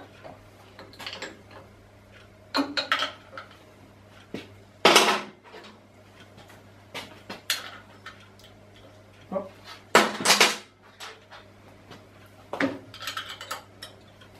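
Irregular metallic clinks and clanks of hand tools and steel parts being handled on a mill-drill's head as a bolt is fitted, with two louder clanks about five and ten seconds in.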